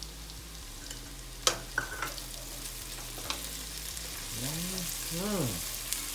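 Chopped onions, bell pepper, celery and garlic sizzling in bacon fat in a stainless steel pot while being stirred with a spoon. The spoon clicks against the pot a few times in the first half.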